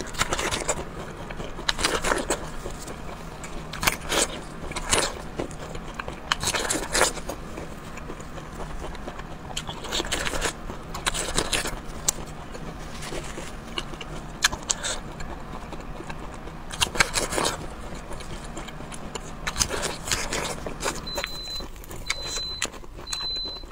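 Close-up eating sounds: irregular wet smacks, chewing and slurps as cooked shellfish meat is bitten and sucked from the shell, with small clicks and scrapes of the shell being handled.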